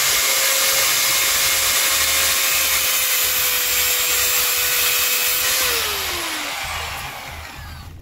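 Angle grinder with a cut-off disc cutting through steel rebar: a loud, steady motor whine over harsh grinding noise. About five and a half seconds in, the grinder is released and spins down, its whine falling in pitch as the sound fades.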